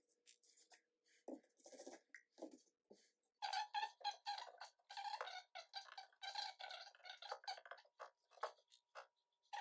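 A few soft knocks, then from about three seconds in a glue brush scrubs contact cement across black mesh backing on a leather panel in quick, scratchy strokes.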